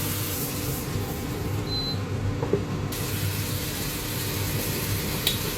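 Konjac frying in hot chili oil in a pan, a steady sizzling hiss, with a low steady hum underneath.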